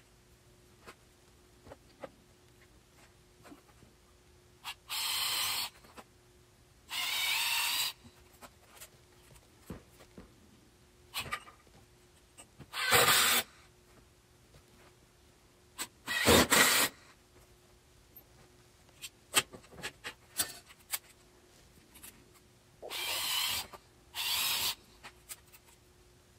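Cordless drill driving screws into the wooden boards of a bench frame: six short bursts of about a second each with pauses between, and small knocks of handling the wood and clamps in the gaps.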